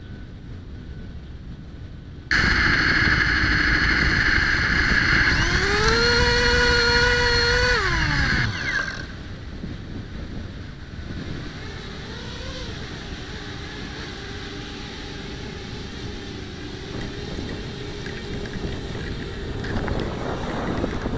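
FPV quadcopter motors and propellers spinning up on the ground. About two seconds in they start with a sudden loud whir, then rise in pitch as the throttle goes up, hold, and drop back after a few seconds to a quieter steady hum. They grow louder again near the end as the quad takes off.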